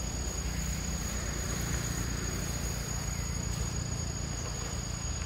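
Insects, most likely crickets, chirring in one steady, unbroken high-pitched drone, over a low rumble.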